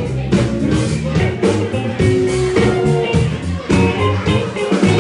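A live band playing with guitar, bass and drums, a regular drum beat running through.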